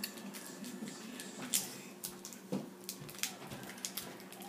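Light handling noise: scattered clicks and rustles as tape is wrapped and pressed around a homemade clothespin rubber band gun, with a few sharper clicks partway through.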